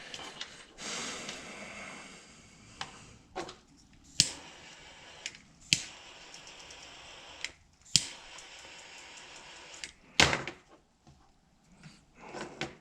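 Small handheld torch hissing in spells as its flame shrinks heat-shrink tubing over spliced wires, with several sharp clicks and a louder knock about ten seconds in.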